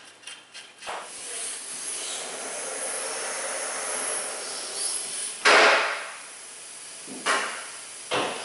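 A steady hiss lasting about four seconds, then three short, loud rushes of hissing noise, the first the loudest.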